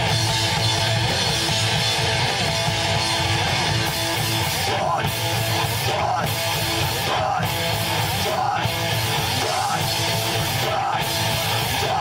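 Live band playing loud, guitar-driven rock music.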